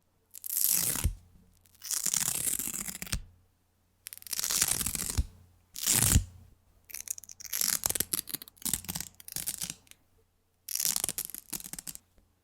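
Velcro hook-and-loop fastener being ripped apart again and again: about five rips of roughly a second each with pauses between, and in the middle a run of short, quick tugs.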